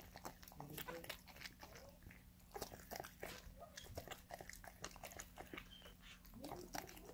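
Corgi mother licking and chewing at her newborn puppy, a quick, irregular run of faint wet smacking clicks as she cleans it just after birth.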